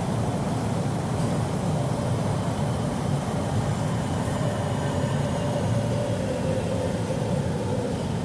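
Inside a subway car running through a tunnel: a steady low rumble of wheels and motors, with a faint humming tone that grows a little stronger from about halfway through.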